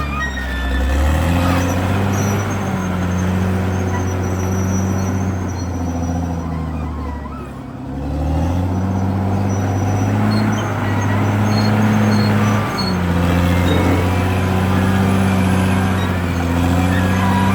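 CAT D6R XL bulldozer's diesel engine working under load, dipping about seven seconds in and pulling back up a second later, with short high squeaks over it.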